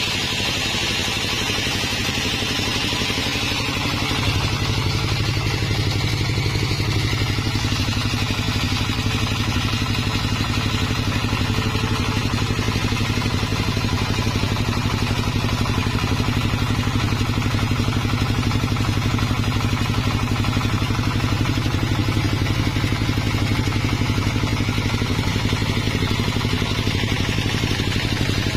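Sawmill engine running steadily with a deep, even hum that gets louder about four seconds in.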